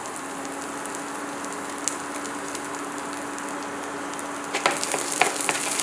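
Carrot sticks and green beans sizzling in hot oil in a grill pan, a steady crackling hiss over a low steady hum. The sizzle grows louder with a few clicks about four and a half seconds in.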